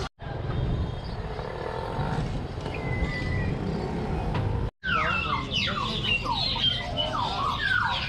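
Busy market street noise with a steady low rumble. After a brief cut, caged parrots squawk loudly: many overlapping shrill calls that sweep quickly up and down in pitch.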